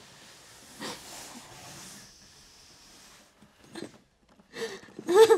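A woman crying: breathy sniffling, then short wavering sobs near the end, the last one the loudest.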